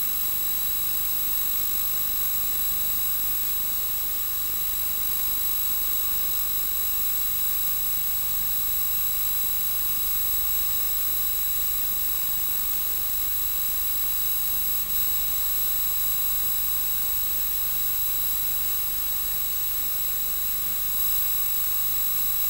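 Steady whirring of a home-movie film projector running, an even hiss with a constant high-pitched whine over it.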